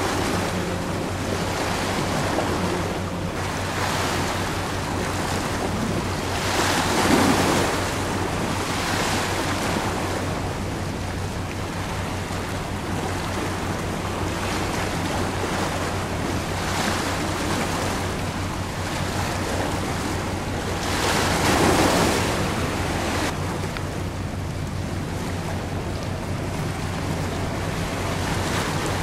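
Wind on the microphone and the wash of the sea, over a steady low drone. The wind swells in two gusts, once about a quarter of the way through and again about three quarters through.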